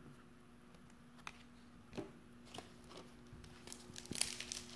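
Trading cards and a foil card-pack wrapper being handled: a few soft clicks at first, then a denser crinkling near the end.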